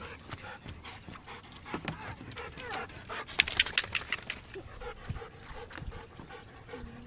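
Husky panting rapidly and steadily. About three and a half seconds in, a quick run of sharp clicks is the loudest sound.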